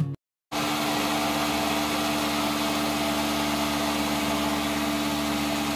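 Glass-jar countertop blender running at one steady speed, blending a pink drink: a constant motor hum under a loud whir. It cuts in suddenly about half a second in and holds without change.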